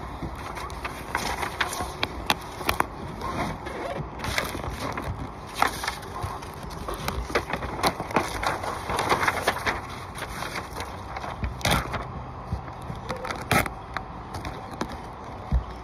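Peel-and-stick butyl flashing tape being handled and applied on a roof: irregular crackles, scrapes and rustles, with a denser rustling spell about halfway through and a few sharper clicks near the end.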